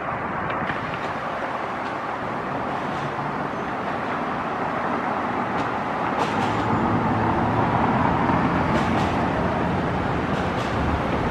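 Steady road traffic noise, a continuous outdoor wash of passing vehicles that swells a little in the second half.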